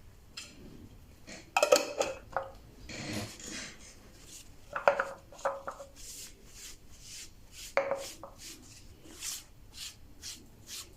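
Light clinks and knocks of a glass bottle being handled, scattered every second or two, a few with a short ring.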